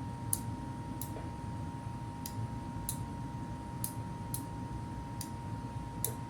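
Six-prong lighted three-position toggle switch being flipped back and forth: about eight sharp clicks at uneven intervals.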